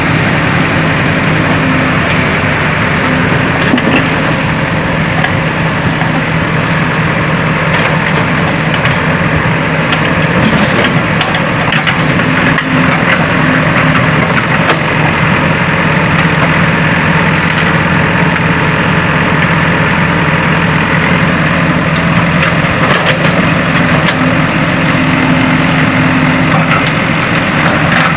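Heavy diesel engine of earthmoving machinery running steadily, with scattered knocks and clanks.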